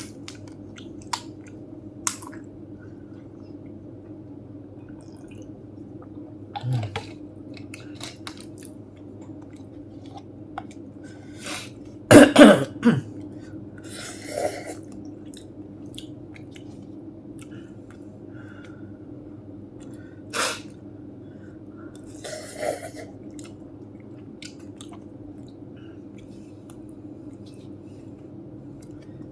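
A person eating spicy instant noodles: quiet chewing with small clicks, broken by a fit of several loud coughs about twelve seconds in and single coughs and throat clearing later on, brought on by the chilli heat.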